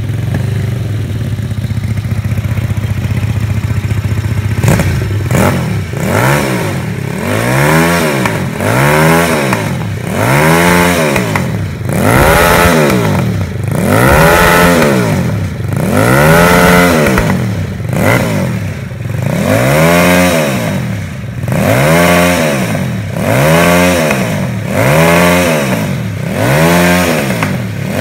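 Custom home-built L-twin engine of a mini Ducati-style motorcycle, breathing through a twin-tip exhaust. It runs steadily for the first few seconds, then is blipped repeatedly, about once every one and a half to two seconds, each rev rising and falling back.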